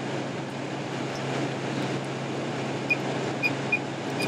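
Steady drone of an idling engine with a constant low hum. A few short, high-pitched electronic beeps come in about three seconds in.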